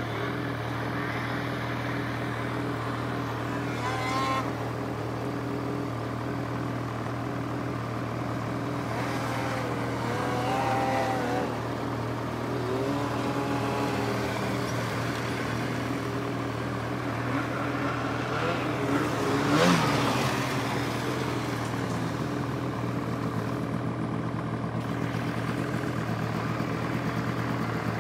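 Two-stroke snowmobile engines: one idling steadily close by, while other sleds rev up and down several times as they climb the slope, the loudest rev about twenty seconds in.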